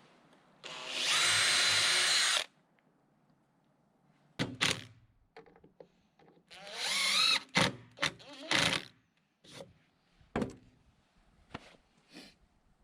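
Handheld electric drill running in two short bursts: a steady whine for about two seconds, then a second burst whose pitch rises as it speeds up. Several sharp wooden knocks fall in between and after.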